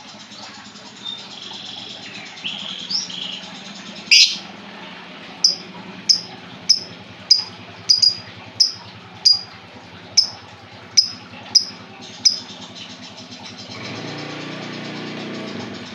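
Lovebird calling: a loud shrill screech about four seconds in, then a run of a dozen or so short, sharp high chirps, roughly two a second. A low rumble comes in near the end.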